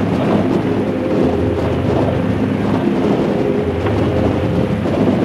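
Harley-Davidson motorcycle's V-twin engine running steadily while riding, with wind buffeting the microphone.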